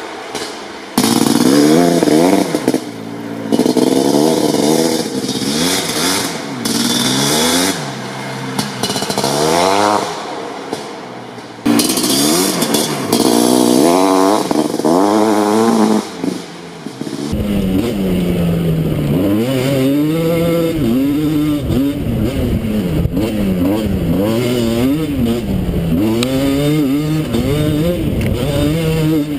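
Two-stroke sport quad engine revving in repeated bursts, its pitch rising and falling with each blip of the throttle. About two-thirds through it cuts to another quad revving up and down continuously.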